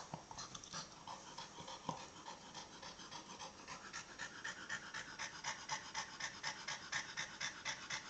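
An American cocker spaniel panting quickly and evenly with its tongue out, out of breath from playing with its ball. The panting starts irregular and becomes a steady, slightly louder rhythm after the first few seconds.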